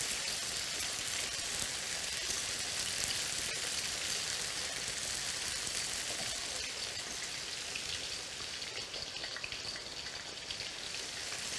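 Zucchini slices frying in oil in a stainless steel pan: a steady sizzle.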